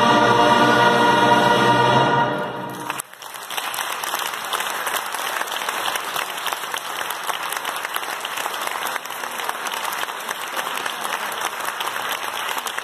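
Brass band holding a full final chord that fades and stops about three seconds in, followed by audience applause.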